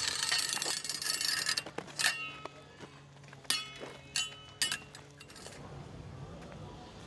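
A chain-link fence being rattled by a hand-held object drawn along its wire mesh. It starts as a quick dense rattle and then breaks into four separate metallic clinks, each with a short ring.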